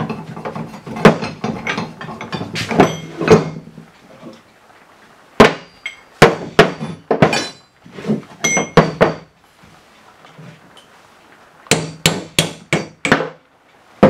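Sharp metal-on-metal hammer blows and clanks from a hammer and steel tools on a steel lower control arm and bushing press. They come in irregular groups, with a quick run of about five blows near the end.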